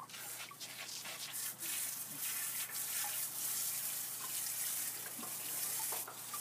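Water from a garden hose spraying and splashing, switched on abruptly, as a freshly skinned rattlesnake is rinsed off under it.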